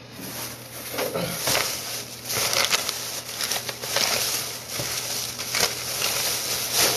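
Thin plastic takeout bag rustling and crinkling as it is handled right against the microphone, in repeated loud crackly bursts.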